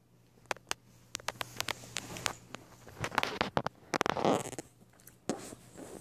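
Scattered sharp ticks and rustling as a small dog moves right up against the phone, with a louder rubbing burst about four seconds in.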